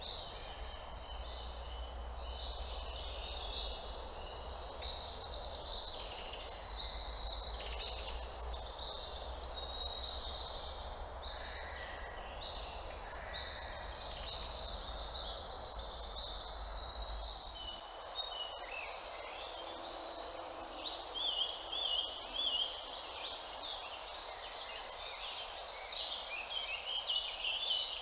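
Several songbirds singing at once, a dense chorus of overlapping chirps and trills over a faint steady background hum. A low rumble underneath stops suddenly about two-thirds of the way through.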